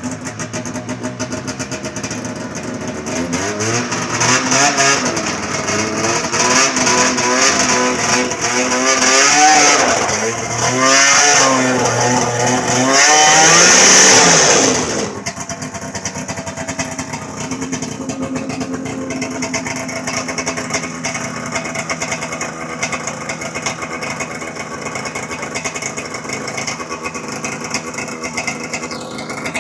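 Snowmobile engine revved in a series of uneven surges for about twelve seconds as the sled is driven up onto a trailer, then dropping back to a steady idle.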